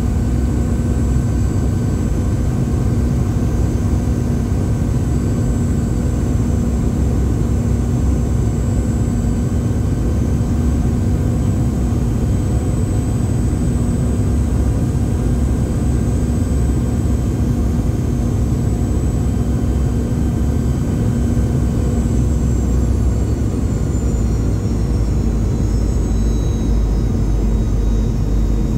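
Rolls-Royce BR715 turbofans of a Boeing 717 heard from inside the cabin: a steady roar with a high engine whine. Near the end the high whine falls in pitch as the engines spool down.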